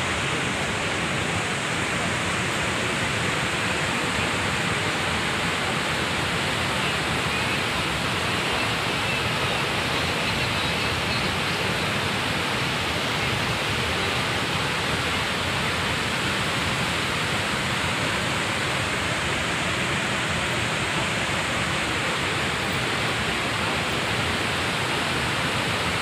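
Chitrakote Falls on the Indravati River in heavy flow: the steady, unbroken rush of a wide waterfall.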